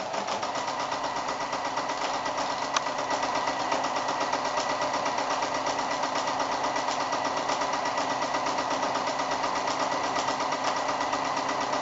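Electric domestic sewing machine running steadily at speed, sewing a straight-stitch line of quilting through the quilt layers, with a fast, even beat of stitches.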